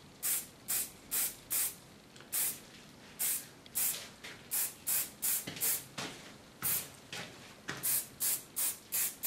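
Aerosol hairspray can sprayed in a rapid string of short hissing bursts, about two or three a second with a few brief pauses, as a finishing spray to fix a styled quiff.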